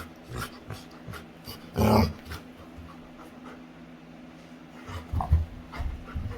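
Labrador retriever making playful noises: one loud, short burst about two seconds in, then several shorter ones near the end.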